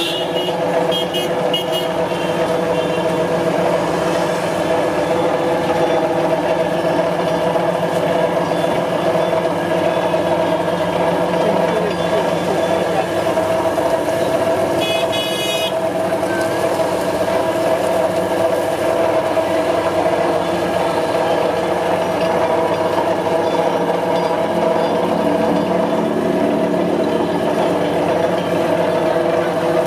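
Motorised sugarcane crusher running steadily, its gear-driven rollers and flywheel giving a constant hum while cane stalks are fed through and crushed. A short vehicle horn toot sounds about halfway through.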